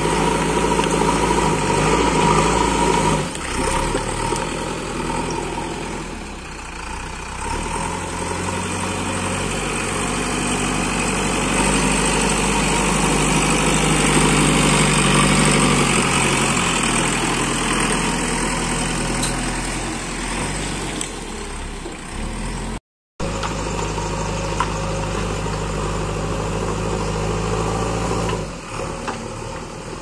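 JCB 3DX backhoe loader's four-cylinder diesel engine running under load as the front bucket pushes and scoops soil, the engine note rising and falling. The sound drops out for a moment a little past two-thirds of the way through.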